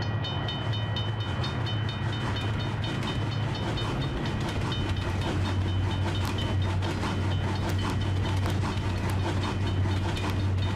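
Train running along the track, a steady low rumble with a quick run of wheel clicks over the rails.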